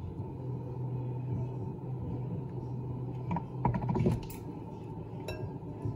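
Metal teaspoon scraping and clicking against a tub of whipped butter while scooping out spoonfuls: a quick cluster of small clicks in the middle and a single click near the end, over a steady low hum.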